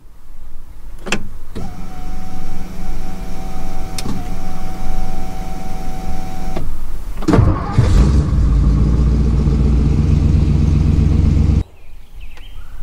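1950s Ford car being started with the key: the starter cranks briefly and the engine catches and runs, loud and low, until it cuts off abruptly near the end. Before the start there is a click and a steady whine lasting about five seconds.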